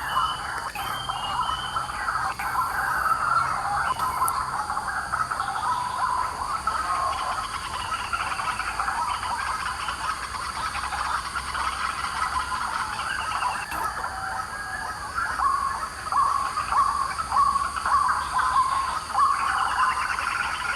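White-breasted waterhens calling: a continuous, noisy run of rapid repeated notes.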